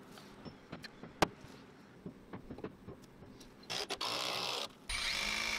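A single sharp knock, then a Milwaukee cordless drill running in two steady bursts, a short one a little past halfway and a longer one starting near the end, driving into wood.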